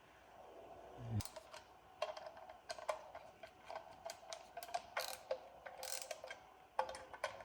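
Plastic cover being fitted back onto a Torqeedo Travel 1103C electric outboard and fastened down: irregular clicks and taps of parts and tool, a few a second, starting about a second in.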